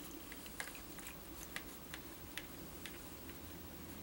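Faint, irregularly spaced small clicks and scrapes as a printed circuit board is lightly brushed in a shallow plastic tray of sodium hydroxide developer, over a low steady hum.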